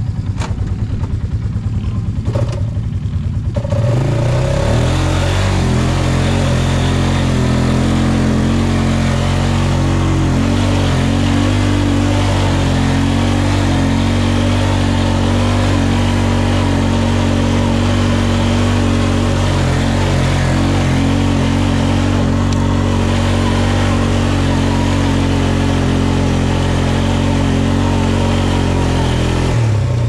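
Can-Am ATV engine pulling: it revs up over the first few seconds, then holds a steady high-revving drone, easing off near the end.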